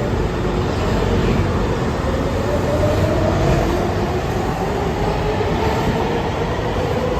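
LA Metro subway train at an underground platform: a steady rumble with a motor whine that rises slowly in pitch as the train picks up speed.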